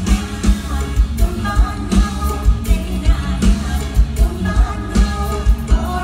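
Thai Isan song in the mor lam style: a singer over a band with a steady, driving drum beat.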